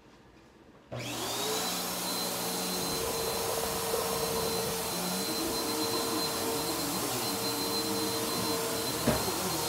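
Bissell upright vacuum cleaner switching on about a second in, its motor whining quickly up to speed, then running steadily as it is pushed over a shag rug. A brief knock sounds near the end.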